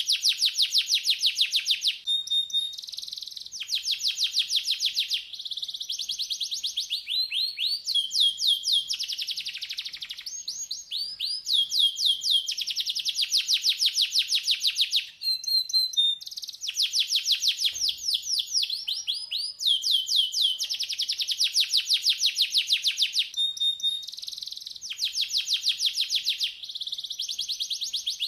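Domestic canary singing: phrase after phrase of fast, high trills, each a rapid string of repeated notes lasting a second or two, with only brief breaks between them.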